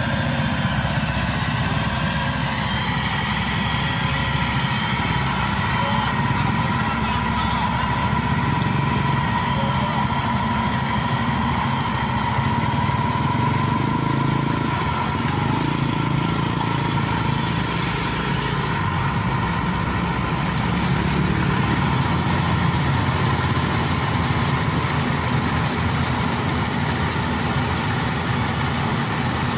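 Diesel engine of a crawler rice combine harvester running steadily as the machine moves on its tracks.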